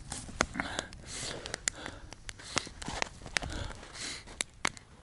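Wood campfire of split logs burning, crackling with irregular sharp pops, mixed with some soft crunching and rustling in snow.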